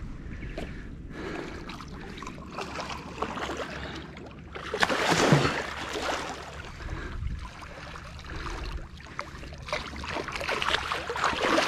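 Hooked wels catfish thrashing at the water's surface, splashing in noisy bursts, loudest about five seconds in and again near the end, over a low rumble of wind on the microphone.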